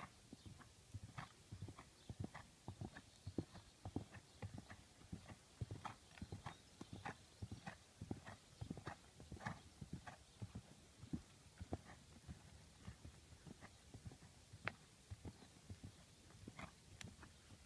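Faint hoofbeats of a freshly unshod horse moving at a steady pace over hard, uneven grass ground, a few dull thuds a second.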